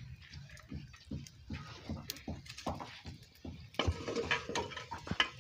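Scattered light knocks and clicks of dry sticks being handled and pushed into a small wood cooking fire, with a livestock animal calling briefly about four seconds in.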